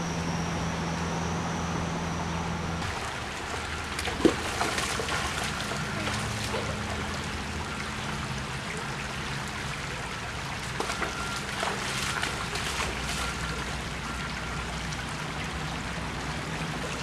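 Shallow, rocky creek trickling, with scattered small splashes and knocks as someone wades through the water; one sharp knock about four seconds in is the loudest. A steady faint hum from the preceding woodland shot cuts off about three seconds in.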